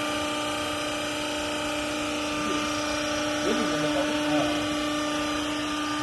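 Vertical hydraulic cloth baler's electric motor and hydraulic pump running with a steady hum while the press plate comes down to compress a load of used clothes.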